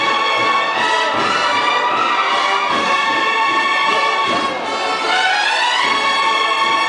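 Brass band playing a slow Holy Week procession march, with held chords and a rising phrase about five seconds in.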